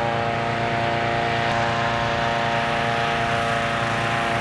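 Hot air balloon inflator fan running steadily at full speed, a dense droning hum with a low rumble, blowing cold air into the envelope laid out on the ground.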